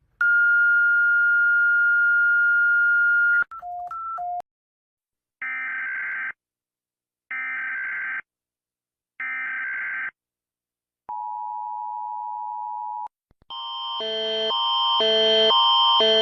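Emergency Alert System alarm tones: a steady high beep for about three seconds, two short beeps alternating between two pitches, then three roughly one-second bursts of screeching digital header tones a second apart. Then a two-second steady lower attention tone, and from about thirteen seconds a louder, rhythmic alarm of alternating chords.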